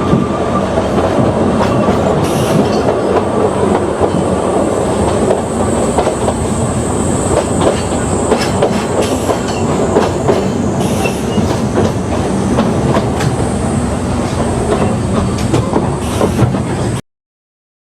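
An Oigawa Railway Ikawa Line train running along the track, heard from on board: a steady rumble with frequent clicks and clacks of the wheels over the rails. The sound cuts off abruptly about a second before the end.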